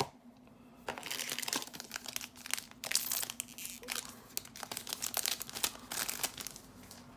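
Crinkling and crackling of a foil booster-pack wrapper being handled and crumpled, in a dense run of quick rustles that starts about a second in and dies away after about six seconds.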